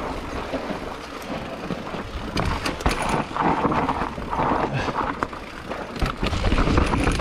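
Specialized Turbo Levo e-mountain bike descending a rough dirt trail: tyres rolling over dirt and rock with a steady low rumble, and irregular sharp knocks and rattles from the bike as it hits rocks.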